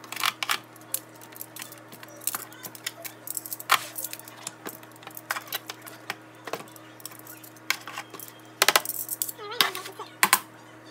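Metal tongs clacking and scraping against a disposable aluminium foil pan as baked ribs are turned over: irregular sharp clicks over a steady low hum.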